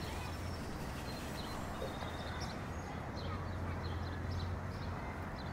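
Outdoor ambience: a steady low hum under a light haze, with many short high chirps scattered through it, like small birds.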